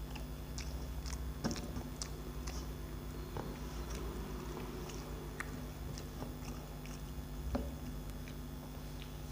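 A man eating rice by hand from a stainless steel plate: his fingers mixing and scraping the rice on the metal, with chewing and many small clicks. There are two sharper taps, one about a second and a half in and one near the end, over a steady low hum.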